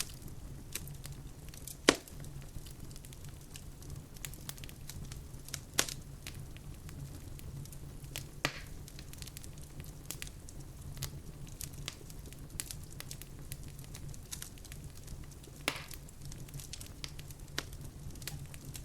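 Wood fire crackling in a fireplace: scattered small crackles and a few sharper pops, the loudest about two seconds in, over a steady low rumble.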